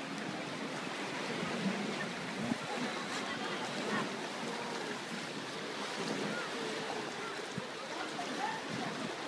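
Steady wash of sea water noise, with faint indistinct voices in the background.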